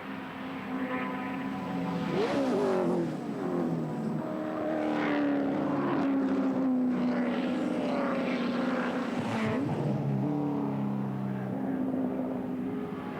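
Racing touring car engines running hard on the circuit, several engine notes overlapping, their pitch rising and dropping as they rev and change gear.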